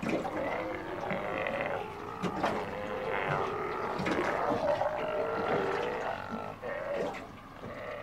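A colony of Steller sea lions calling over one another: many overlapping, drawn-out calls from several animals at once, with no break.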